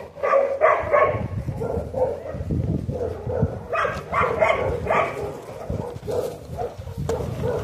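Dogs barking in short quick runs, about three barks near the start and four or five around the middle, with a low rumble underneath.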